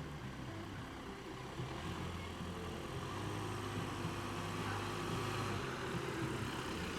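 A vehicle's engine running steadily at low speed, getting slightly louder after about two seconds.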